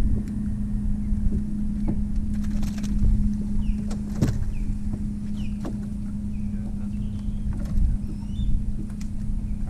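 A boat motor runs with a steady hum under a low wind rumble, and a few sharp clicks stand out, the loudest about four seconds in.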